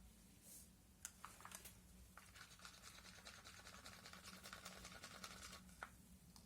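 Faint rapid scratching lasting about three seconds, with a few light clicks before it and one sharp click near the end.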